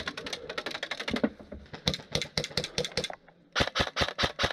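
Airsoft rifle firing in fast full-auto bursts, a rapid clatter of shots. A long burst is followed by a brief pause about three seconds in, then another burst.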